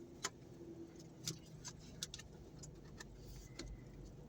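Faint, scattered light clicks and taps of takeout food containers being handled, over a low steady room hum.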